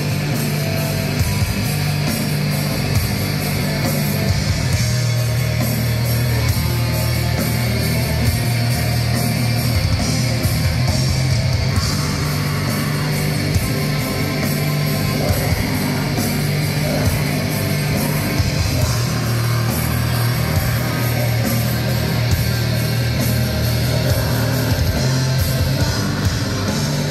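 Black metal band playing live, loud through the venue PA: heavy distorted guitars over dense, rapid drumming.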